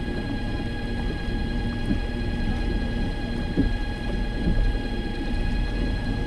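A fishing kayak under way, its drive giving a steady, unchanging whine over a low rumble of wind on the microphone and water along the hull.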